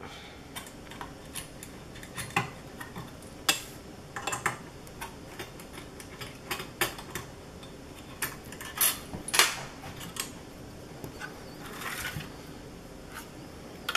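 Scattered small metallic clicks and taps as screws are taken out and the metal drive bracket is lifted from a Zotac ZBOX CI660 nano mini PC's case. There are a few sharper clinks about three and a half and nine seconds in.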